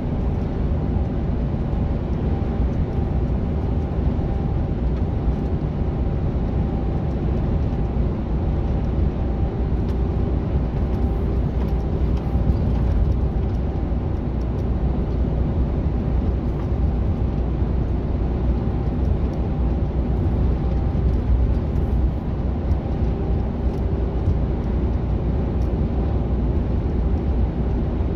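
Steady in-cab noise of a Mercedes-Benz Actros semi truck cruising on the highway: a low, even engine drone and road rumble with a faint steady hum, unchanging throughout.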